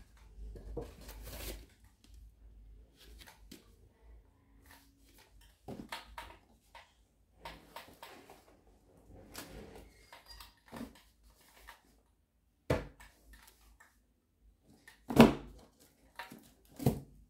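Small objects being handled: scattered light clicks and taps, then three sharp knocks in the last few seconds, the middle one the loudest.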